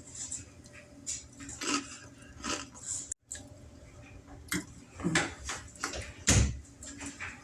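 Cereal crisps being crunched while eaten, a string of irregular sharp cracks and clicks with a few heavier knocks about six seconds in.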